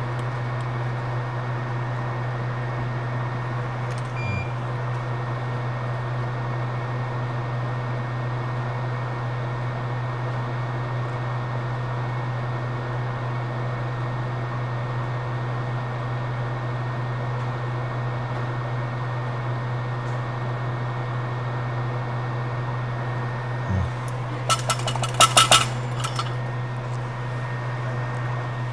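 Steady low drone from running bench equipment, with a few faint steady tones above it. Near the end comes a brief rapid run of light clicks and clinks.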